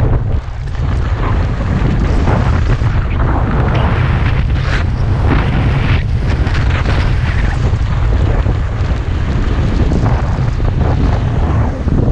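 Wind buffeting the camera microphone while skiing downhill, a heavy steady rumble over the rough hiss of skis sliding on snow, which swells at intervals.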